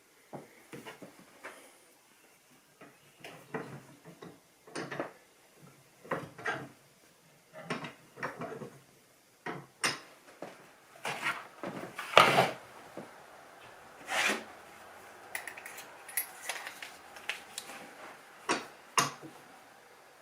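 Irregular knocks, clicks and rubbing of small objects being handled and set down on a hard surface, with the loudest knock about twelve seconds in.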